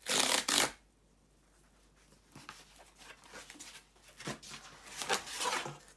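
A cardboard book mailer being torn open: a loud rip in the first second, then quieter rustling and scraping of cardboard and paper as it is handled and opened further.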